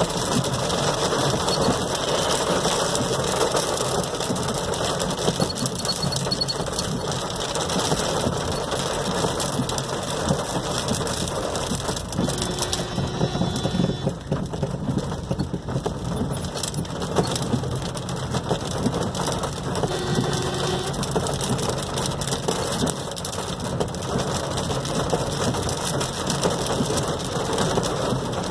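Heavy rain drumming on a car's roof and windshield, heard from inside the cabin: a dense, steady patter of countless drops.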